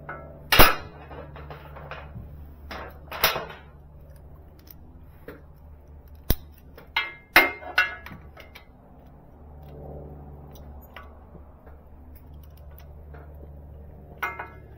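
Hand tools clinking and clacking against metal as a motorcycle's oil drain plug is refitted: scattered sharp metallic knocks, several in a quick cluster midway, some ringing briefly, over a steady low hum.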